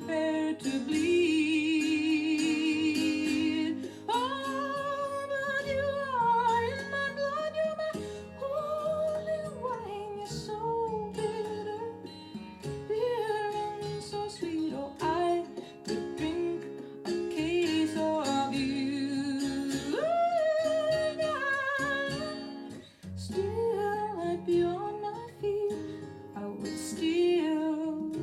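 Recorded song playing: a singer holding long notes with vibrato over plucked acoustic strings.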